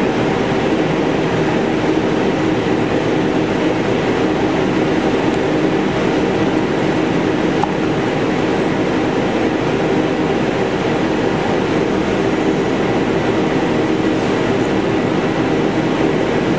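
Steady, unchanging air-handling hum with a low drone.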